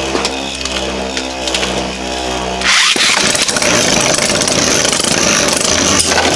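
Two Beyblade Burst tops, Immortal Phoenix and a 3D printed JYNX Ouroboros, spinning in a plastic stadium with a steady whirring hum. About three seconds in this turns into a louder, continuous grinding rattle of repeated clicks and clashes as the tops hit each other.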